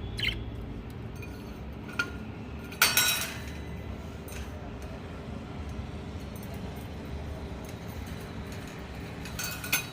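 A few sharp metallic clinks that each ring briefly, as a budgie knocks its toy about. The loudest is a quick cluster about three seconds in, with single clinks at about two seconds and near the end.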